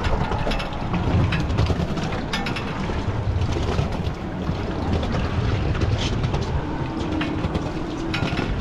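Steady low rumble of a fishing boat at sea, with scattered short clicks and knocks.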